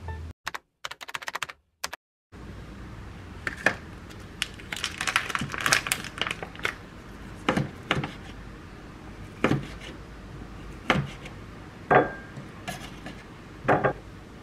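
Chef's knife slicing sausage on a wooden cutting board: separate sharp knocks of the blade meeting the board, roughly one a second, with a quicker run of small clicks around five to six seconds in. The first two seconds are near silent.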